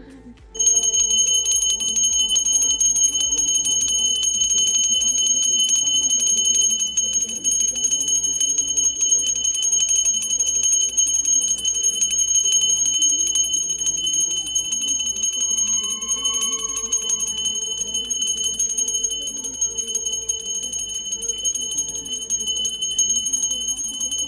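Puja hand bell rung rapidly and without a break, a steady high ringing that starts abruptly about half a second in.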